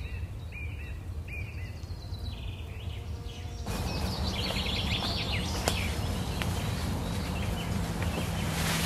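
Small songbirds chirping in woodland over a low rumble, short falling notes repeated about twice a second. About four seconds in the background jumps to a louder hiss with other, higher bird calls, and a steady low drone comes in near the end.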